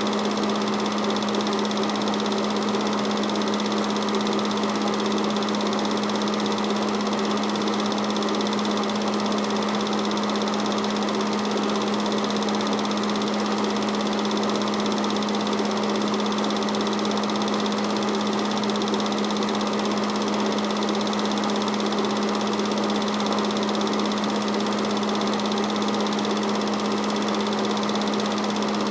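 Film projector running during a home-movie transfer: a steady mechanical whirr with a constant hum that does not change.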